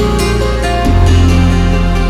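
Background music: a soft instrumental track with plucked guitar over sustained synth and bass notes, the bass changing about a second in.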